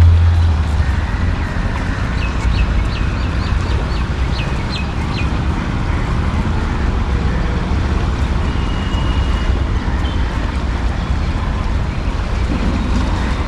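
Steady rush of river water after rain, with wind buffeting the microphone as a low rumble. A bird gives a quick run of about ten short, high chirps a couple of seconds in.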